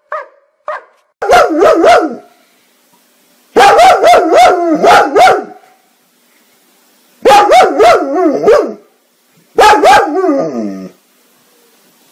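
German Shepherd barking in four loud bouts of quick barks with the pitch bending up and down, the last bout sliding down in pitch as it ends. It is preceded by a couple of short soft woofs.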